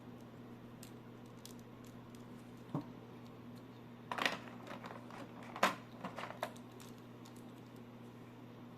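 A few sharp small clicks and taps, like plastic parts or packaging being handled: one a little under 3 seconds in, then a quick cluster around the middle and a few more just after. A low steady hum runs underneath.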